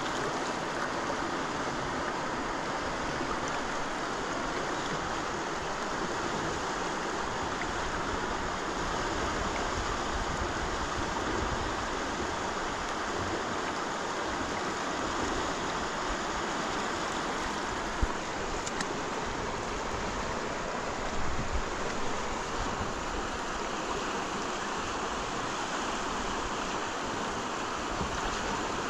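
Steady rush of running water, with a single sharp knock about eighteen seconds in.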